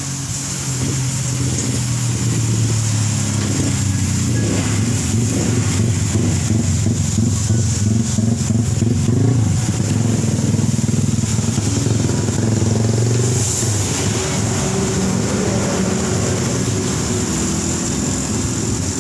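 Pressure washer running: a steady motor-and-pump hum under the hiss of a water jet spraying onto a car.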